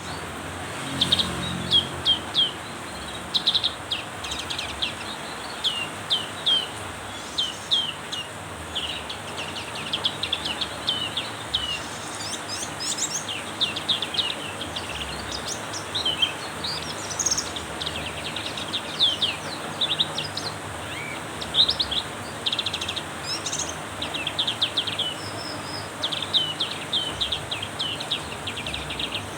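Black-capped white-eye singing almost without pause: rapid runs of high, sharp chirps and twittering notes, over the steady hiss of heavy rain.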